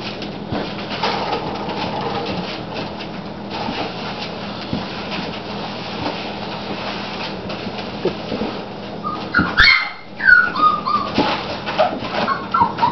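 Olde English Bulldogge puppies playing on a tile floor: scuffling and clicking, with a broom's bristles brushing the floor, then from about nine seconds in a run of loud, high yips and whimpers.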